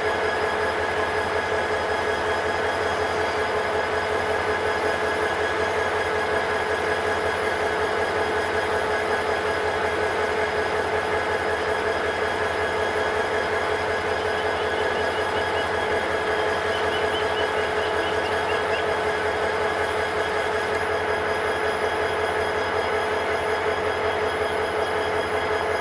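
Steady, unchanging diesel engine drone of a train, even in level and pitch.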